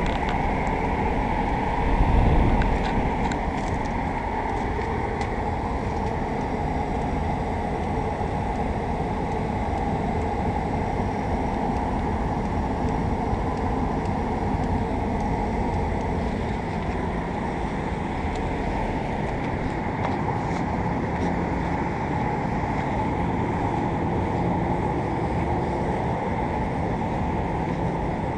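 Outdoor central air conditioner condenser unit running: a steady whir of the fan and hum of the compressor. A brief low rumble about two seconds in.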